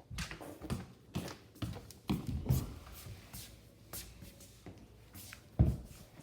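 Paper rustling and being handled, with irregular taps and a louder thump about five and a half seconds in.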